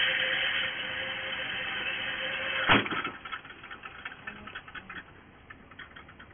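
Shooting range's electric target retriever running to bring the paper target back up the lane: a steady whir with a faint hum, then a single sharp bang about a third of the way in, followed by rapid clicking, several a second, as the carrier travels along its track.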